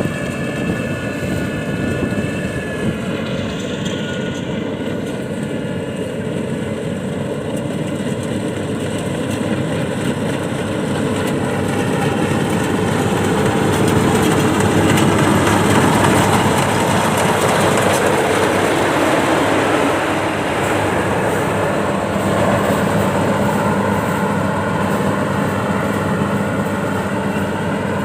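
Engine of rice-harvesting farm machinery running steadily, growing louder toward the middle as it comes closer or works harder.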